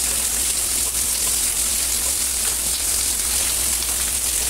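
Steady rain falling on a concrete yard and rooftops, with water streaming off a roof edge.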